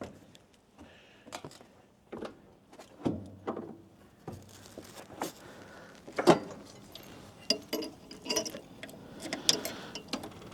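Irregular clicks, knocks and light rattles of someone climbing into the seat of an old mini excavator and handling its controls before a start attempt.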